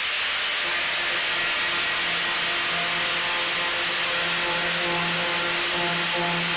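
Angle grinder with a 24-grit sanding disc running steadily under load, grinding the gel coat off a composite blade panel: a steady motor hum under a rough abrasive hiss.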